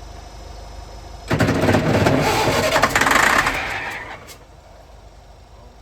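Leyland Roadtrain truck's diesel engine being cranked over by its starter motor for about two and a half seconds on starting spray, with a fast fluttering beat, then tailing off without catching.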